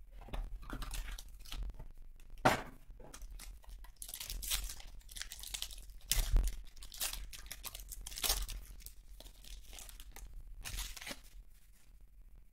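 A 2021 Topps Inception card box being torn open, then its foil pack crinkled and ripped apart. The rustling comes in bursts, with sharp loud rips about two and a half seconds in and again about six seconds in.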